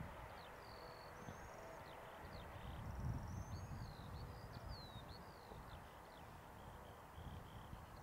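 Skylark singing: a faint, unbroken stream of quick, varied chirps, short sweeps and trills, over a low, uneven rumble.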